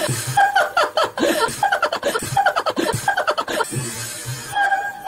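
A woman laughing heartily in short bursts.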